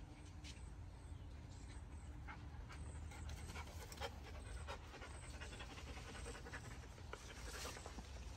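Dog panting in short breaths.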